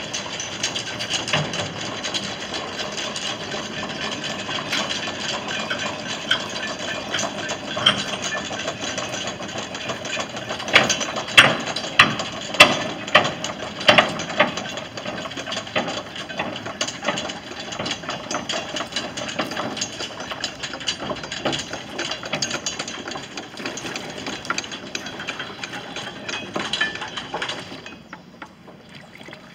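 Chain-towing tug hauling its towing chain up over the bow pulley: a steady mechanical rattle and clatter of chain links, with a run of six loud clanks about eleven to fourteen seconds in. The noise falls away near the end.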